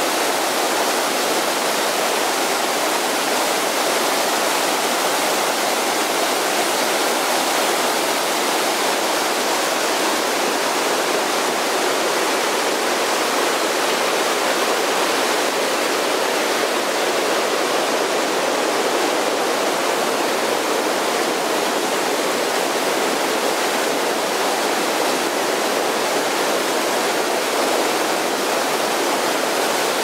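A fast mountain creek rushing over boulders in small white-water cascades: a loud, steady, unbroken rush of water.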